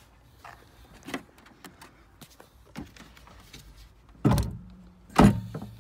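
A heavy H7 car battery being worked into its tray: a few light knocks, then two heavy thuds about a second apart near the end.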